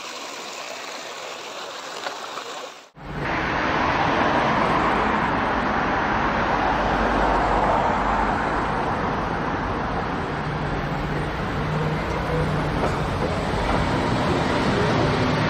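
A creek flows quietly, then about three seconds in the sound cuts abruptly to steady street traffic. A Volvo B5LH hybrid double-decker bus drives past with cars, its engine adding a low rumble.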